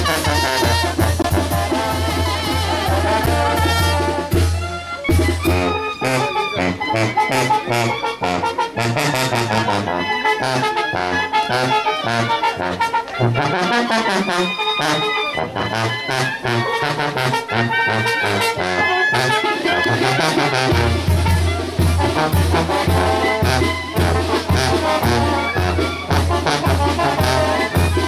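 Brass band music with a steady low beat. The low beat drops out about five seconds in, leaving the melody lines on their own, and comes back near twenty seconds.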